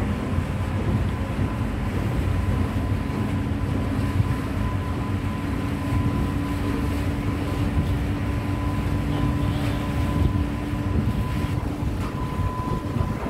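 Tugboat engine running steadily, a low rumble with a steady hum over it, with some wind on the microphone.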